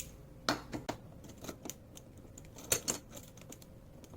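Scattered light metallic clicks and clinks of an Allen key working loose the bolts of a scooter's rear grab bar, with the loudest pair of clicks a little under three seconds in.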